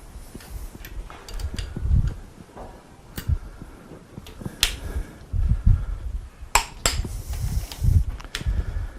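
Scattered sharp metal clicks and knocks over dull low thumps, from tools and parts being handled on an engine block under reassembly.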